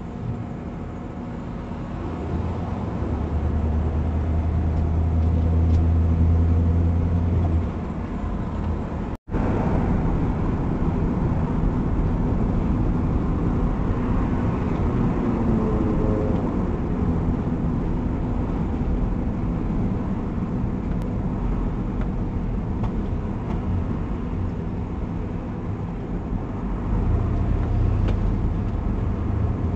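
Engine and road noise heard inside a car, picked up by a dashboard camera: a steady low hum that grows louder for a few seconds, cuts out for an instant at an edit about nine seconds in, then carries on as the car drives in traffic.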